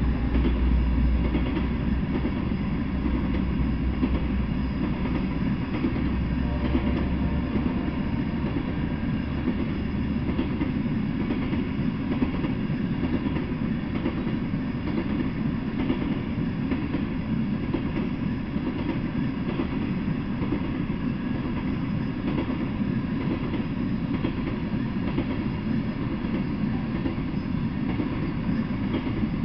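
A freight train of loaded coal hopper cars rolling past, making a steady rumble of steel wheels on the rails. An extra deep rumble underneath fades out about ten seconds in.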